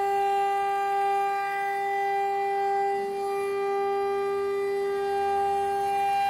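CNC router spindle and end mill cutting 5 mm aluminium plate, giving a steady high-pitched whine with overtones.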